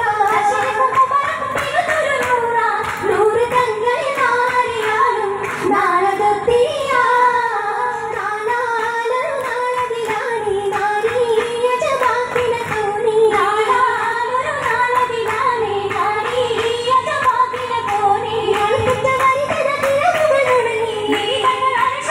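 Oppana song: a female voice sings a wavering Mappila-style melody over accompaniment, with the dancers' rhythmic handclapping.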